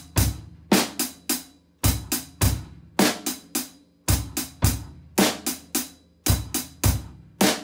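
Drum kit playing a sixteenth-note funk groove. The hi-hat holds a repeating "lemonade" figure, under snare and bass drum strokes, in a pattern that repeats about every two seconds.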